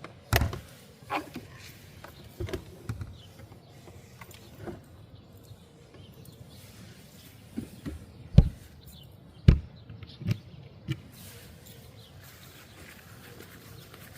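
Irregular knocks and thumps, a dozen or so spread unevenly, the loudest two about a second apart past the middle.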